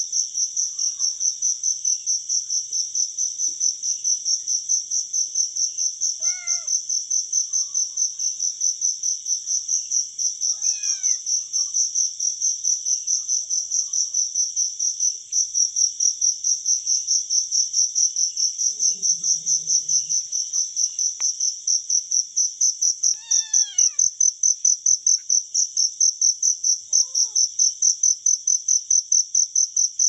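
Crickets chirping steadily, a high pulsing trill at about five pulses a second, with a few short falling calls over it.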